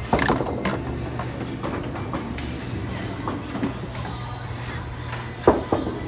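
Bowling alley din: balls rolling on wooden lanes, pins clattering and pinsetter machinery clunking over a steady low hum, with a sharp crash about five and a half seconds in.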